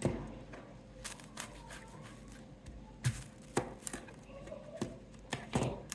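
Knife cutting an onion on a cutting board: scattered, irregular knocks of the blade against the board, with small handling taps in between.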